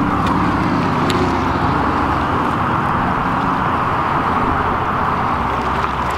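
Steady rushing of wind and water along a rocky shoreline, with a low rumble underneath.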